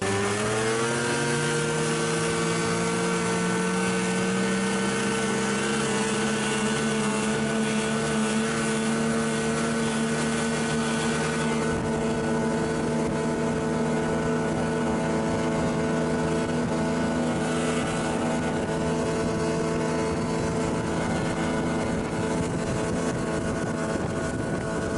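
Snowmobile engine pulling away, its pitch climbing over the first second or two, then running steady at cruising speed, with a rushing hiss of wind.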